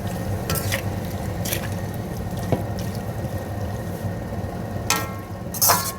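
Chicken and masala being stir-fried (bhuna) in a pan, with a spatula scraping and knocking against the pan several times over a steady low rumble; the loudest stroke comes near the end.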